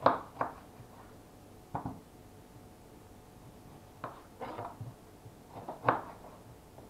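Kitchen knife cutting a lemon on a wooden cutting board: a few scattered knocks of the blade against the board, irregularly spaced, the loudest about six seconds in.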